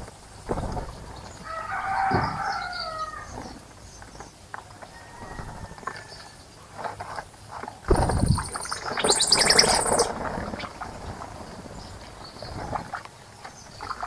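A rooster crows once, a drawn-out call about two seconds in, among other birds. A low thump comes past the middle, followed by a rapid high chattering bird call, the loudest part.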